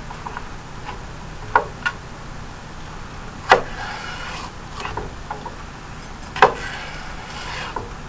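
Chef's knife slicing celery stalks lengthwise on a wooden cutting board. The blade knocks sharply on the board a few times, the two loudest knocks about three seconds apart, and each of those is followed by a brief scraping hiss as the blade draws along the stalk.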